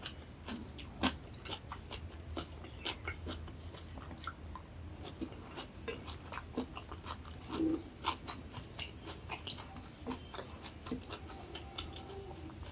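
Close-miked chewing of a rice-and-curry meal: an irregular run of small wet mouth clicks and smacks.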